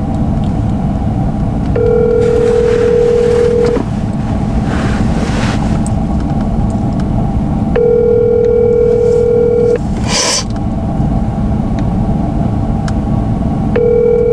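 Telephone ringback tone on a phone's speakerphone: a steady two-second tone that repeats every six seconds, three times, while the call goes unanswered. Under it runs a low steady rumble in the truck cab, and a short noisy burst comes near the end.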